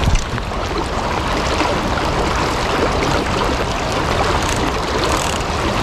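Steady rushing of creek water mixed with pouring rain.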